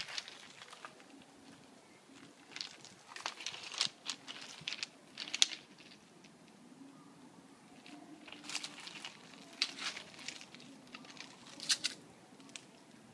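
Dry leaves and grass crinkling and crunching as cats move and nose about in them, in three clusters of quick crackles: about two to five seconds in, around nine seconds, and near twelve seconds.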